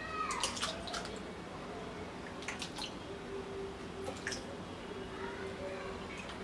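Faint drips and a few light clinks of juice and ice cubes in a serving glass, over a low room hum.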